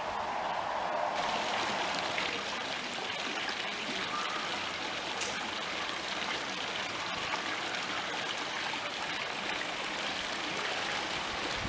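Water splashing and trickling along a small outdoor fountain channel fed by pump-shaped spouts, a steady rushing that fills out about a second in.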